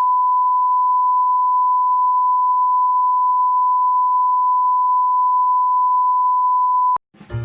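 Steady electronic test tone at one unchanging pitch, held for about seven seconds and cutting off suddenly. Music starts just before the end.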